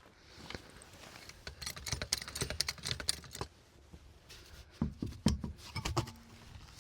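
Hand tools and wheel bolts clicking and clinking during a wheel change done by hand. A run of quick sharp clicks comes first, then a few heavier knocks near the end.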